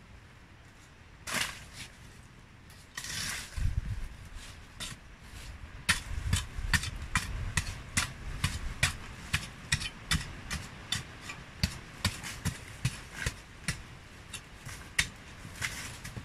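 Hoe blade chopping into the hard packed earth of a termite mound: a few scrapes first, then from about six seconds in a steady run of sharp strikes about twice a second, each with a short crumbling of loosened soil.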